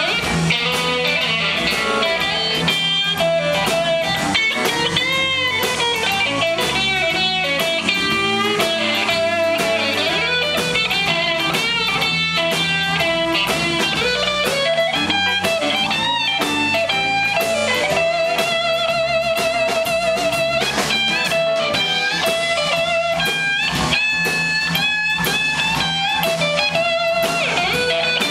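Live blues band playing: a Strat-style electric guitar takes the lead with bent notes and vibrato on held notes, over electric bass and drums.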